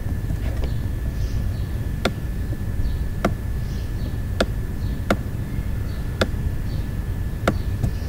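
Computer mouse button clicking about six times, at irregular gaps of roughly a second, over a steady low rumble and a thin steady high whine.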